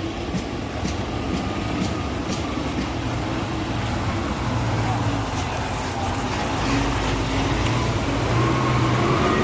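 A heavy road vehicle's engine running amid road traffic noise, its pitch rising near the end.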